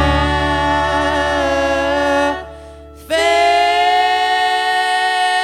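Music: a singer holds long notes over instrumental backing, with a short drop about two and a half seconds in before a new held note.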